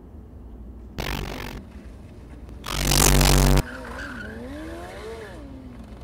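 Motorcycle engine revving in short bursts that cut off abruptly, one about a second in and a louder one around three seconds in. This is followed by a fainter engine note that wavers up and down for about two seconds.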